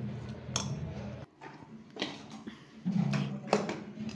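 A metal spoon clicks and scrapes a few times in a metal pot of semolina cooking in milk. Under it runs a low steady hum that cuts out about a second in and briefly returns.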